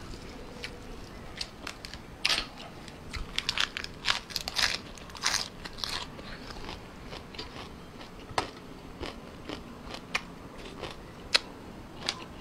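Close-up eating sounds of a person chewing blood cockles in spicy salad: wet smacking and crunching bites, densest in the first half, then a few sharp single clicks.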